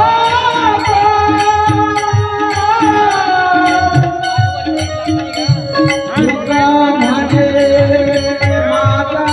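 Marathi devotional kirtan music: a male voice sings long, ornamented held notes that glide between pitches, over a regular drum beat and a steady pattern of sharp, bright metallic clicks.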